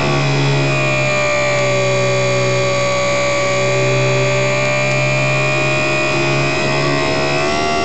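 HobbyZone Super Cub RC plane's electric motor and propeller whining steadily in flight, heard from a camera on board the plane. The pitch shifts briefly near the end.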